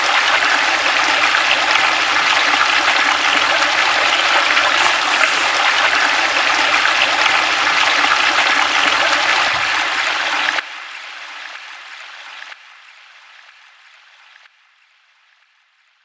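Water running and splashing steadily down the rock cascades of a garden pondless stream and waterfall. It drops away in steps from about ten and a half seconds in and has nearly died out by the end.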